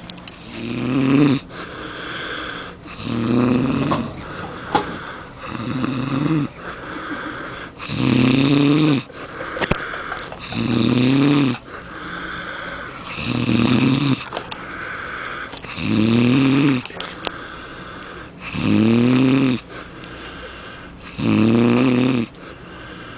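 A boy snoring loudly and regularly: nine rough, rattling snores about every two and a half seconds, each rising and falling in pitch, with softer breathing between them.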